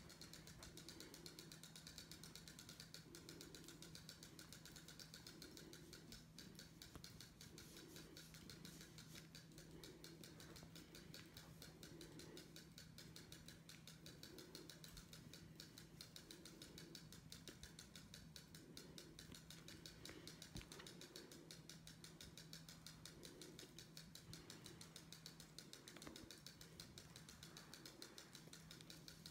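Faint domestic cat purring while its head is rubbed with a roller massager: a fast, even rattle that swells and fades with each breath.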